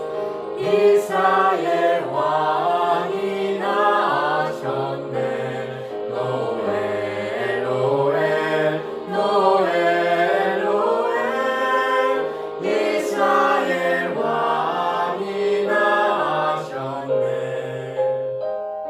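Group of voices singing a Christmas praise song along with a pre-recorded instrumental backing track.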